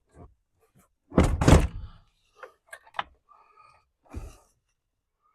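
Plastic dashboard of a 2005 Honda Element being worked into place by hand: a loud double thump about a second in, a few sharp clicks and knocks, then another thump near the end as it seats.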